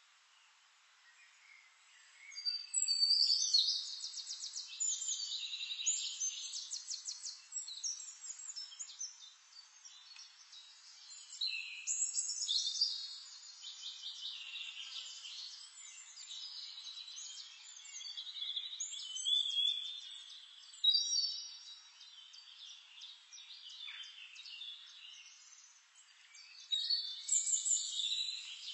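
Songbirds singing in repeated phrases of high chirps and fast trills, with short pauses between the phrases, over a faint background hiss.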